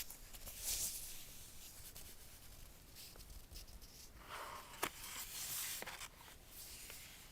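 Packaging being handled by hand: light, irregular rubbing and scraping, with one sharp click a little past the middle.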